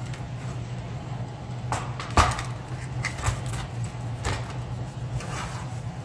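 Scattered small clicks and knocks of a screwdriver and plastic laptop parts being handled while the battery's screws are taken out, the loudest knock about two seconds in, over a steady low hum.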